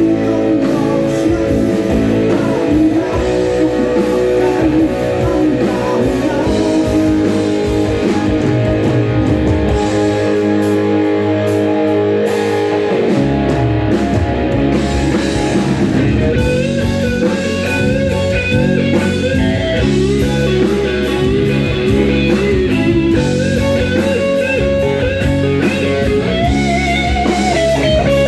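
Rock band playing live: electric guitars over bass and drums, with no singing. About halfway through, a lead guitar melody with bent, wavering notes comes in over the band.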